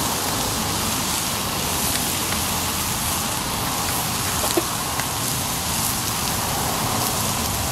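Whiting and salmon fillets sizzling steadily in oil on a hot propane flat-top griddle, with a couple of small pops of spattering fat around the middle.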